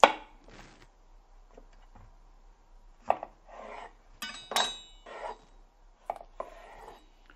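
Chef's knife cutting vegetables on a wooden cutting board: a sharp chop at the start, then scattered cuts and knocks as a courgette is handled and cut. A short ringing metallic clink comes about four and a half seconds in.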